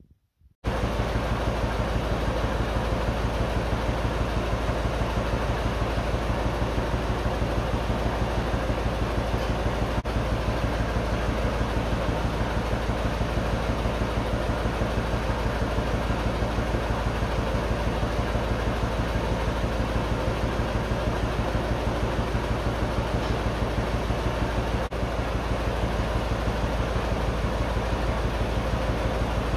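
1948 John Deere A tractor's two-cylinder engine running steadily, a fast even beat of exhaust pulses, starting abruptly about half a second in.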